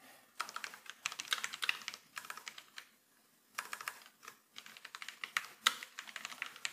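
Typing on a computer keyboard: quick runs of key clicks, with a short pause a little before the middle.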